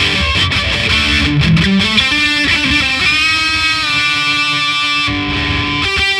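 Electric guitar played through a guitar amplifier with some distortion: a lead line of single notes, with one long held note near the middle and a short break about five seconds in.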